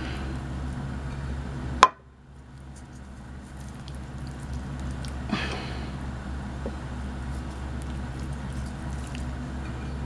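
Hands handling oiled, herb-coated raw rabbit legs in a glass baking dish: soft wet squishing and small clicks over a steady low hum. A sharp click about two seconds in is the loudest sound, and a softer knock comes about five seconds in.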